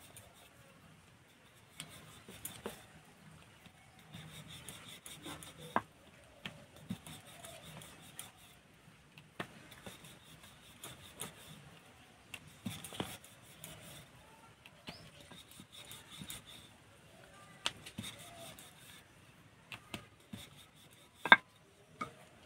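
Wooden rolling pin rolling dough on a round stone board: a soft, uneven rubbing with scattered light clicks and knocks.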